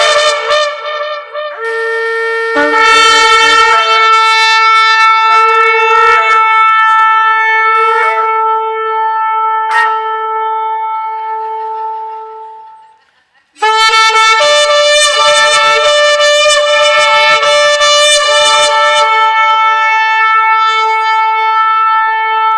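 A horn blown in long, loud held blasts: the first wavers and fades out about twelve and a half seconds in, and a second blast starts abruptly about a second later and holds to the end.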